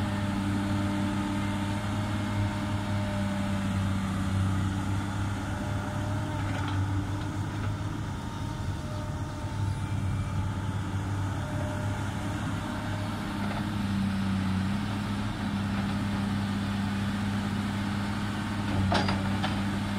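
Komatsu PC300 hydraulic excavator's six-cylinder diesel engine running steadily under working load as the machine digs and swings, with a couple of short knocks near the end.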